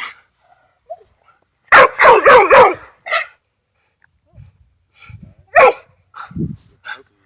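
Dog barking: a quick run of four or five loud barks about two seconds in, then a few more single barks later.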